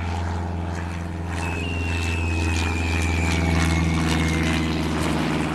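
Propeller-plane engine drone, steady and low-pitched, with a thin whistle that slides slowly down in pitch through the middle.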